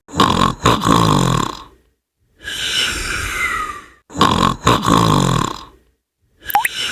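A person snoring through a blocked, congested nose (sinus snoring). A rattly snoring breath alternates with a breathy, falling out-breath, the cycle repeating about every four seconds. A short rising whistle comes near the end.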